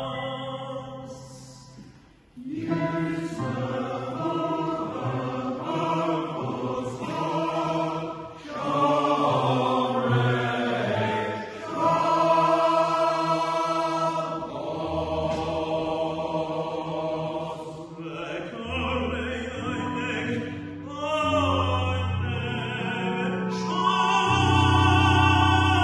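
Male voice choir singing a Jewish liturgical choral setting in Hebrew, with low sustained bass notes under the upper voices. The singing falls away briefly about two seconds in and the voices re-enter together.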